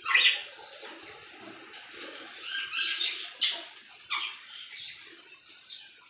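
Caged aviary birds calling: a series of sharp chirps and squawks, several sweeping down in pitch, the loudest about a second in and around the middle.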